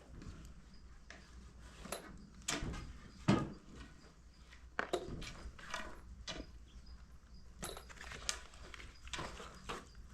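Irregular light knocks, clicks and clatter, the loudest a little over three seconds in.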